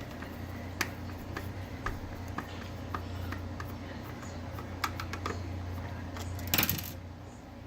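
Phillips screwdriver working a screw out of a kitchen mixer grinder's housing: light, irregular clicks and taps, with a louder short scrape about six and a half seconds in. A low steady hum runs underneath.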